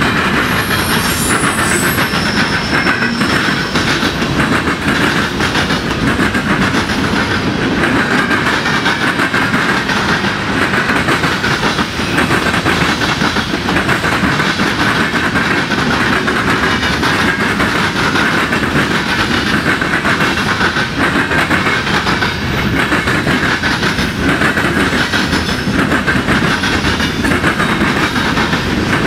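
Freight cars of a manifest train rolling past, their steel wheels clattering steadily over the rail joints and diamond crossing. A brief high wheel squeal sounds about a second in.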